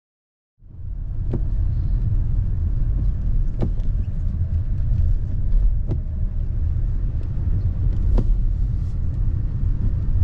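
Car interior noise while driving: a steady low road-and-engine rumble starting about half a second in, with a faint sharp tick roughly every two seconds.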